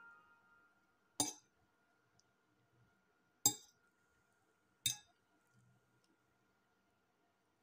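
Metal fork clinking against a china plate three times while lifting noodles: short, sharp clinks, the first about a second in, the next about two seconds later, the last a second and a half after that.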